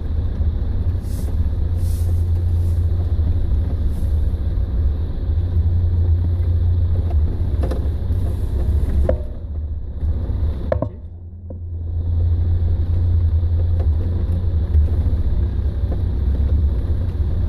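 Steady low rumble of wind buffeting the phone's microphone, over Land Rover Discovery 4x4s crawling through deep mud some way off. The rumble drops away briefly about halfway through.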